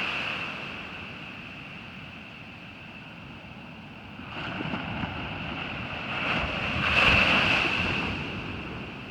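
Surf breaking on a beach, in swells: one builds about four seconds in and a louder one comes around seven seconds in.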